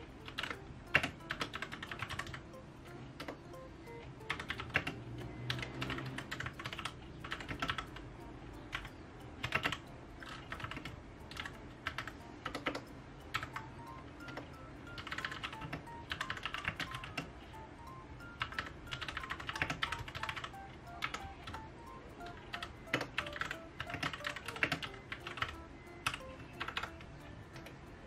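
Royal Kludge RK61 mechanical keyboard being typed on: quick runs of key clacks in bursts, with short pauses between them.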